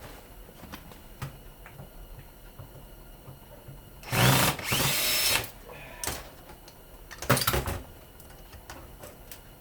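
Power drill-driver running in two bursts on a fastener, one of about a second and a half four seconds in and a shorter one later, after a few faint handling clicks.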